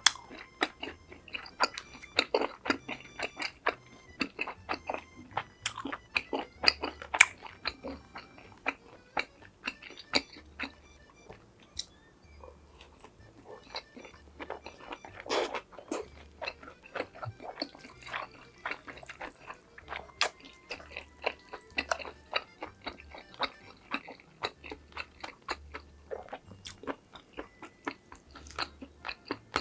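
Close-miked chewing with many sharp crunches of crisp food, over soft background music with a steady low beat.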